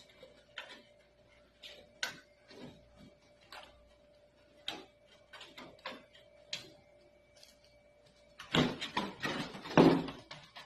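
Scattered small clicks of a screwdriver working the screws on a desktop computer case, then a louder, denser clatter of the case's metal side cover being handled and taken off near the end.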